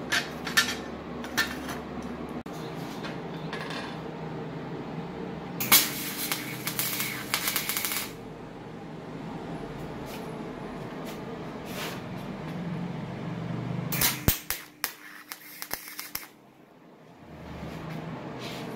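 MIG welding arc on aluminium sheet, from a Retop MIG 250i, crackling and sizzling in two bursts of about two seconds each: one a few seconds in and one near the end. A steady hum runs underneath.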